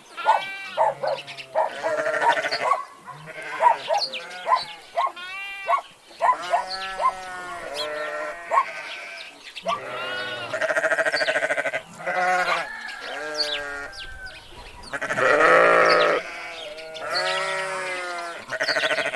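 A flock of sheep bleating, many calls overlapping one after another, with one long, loud bleat about fifteen seconds in.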